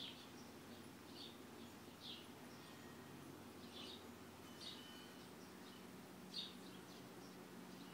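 Faint birds chirping: short, separate high chirps every second or so, the loudest about six seconds in, over a faint steady low background hum.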